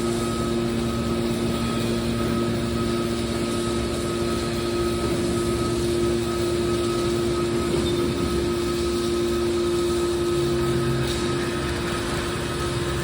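Steady hum of a hydraulic aluminum baler's motor and pump running, holding an even pitch throughout.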